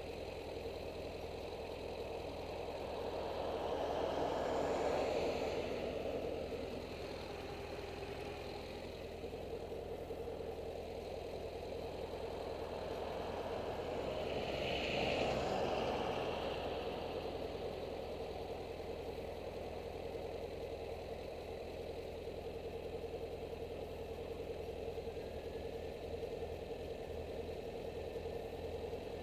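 BMW F800GS's parallel-twin engine idling steadily with the bike standing still. Two passing vehicles swell up and fade away, about 5 seconds and 15 seconds in.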